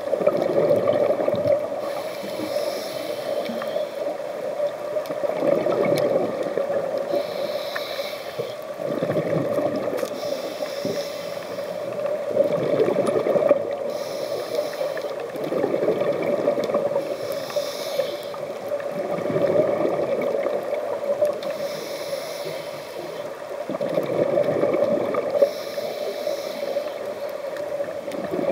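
Scuba diver breathing through a regulator underwater: a hiss on each inhale and a bubbling gurgle on each exhale, repeating about every four seconds over a steady hum.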